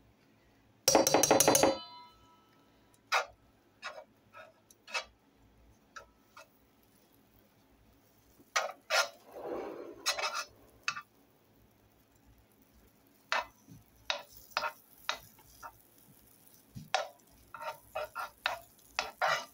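Utensil tapping and scraping in a nonstick electric skillet as a pat of butter is pushed around and spread: a scatter of short clicks and scrapes, with one louder ringing knock about a second in. A faint high hiss of the butter starting to sizzle comes in during the second half.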